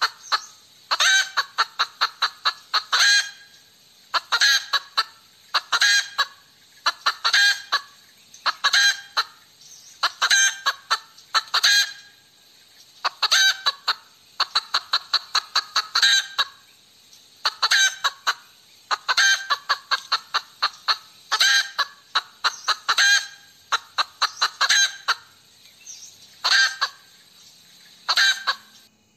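A hen cackling over and over, about one call every second and a half, each a quick run of short clucks ending in a longer, louder note. The cackling stops abruptly near the end.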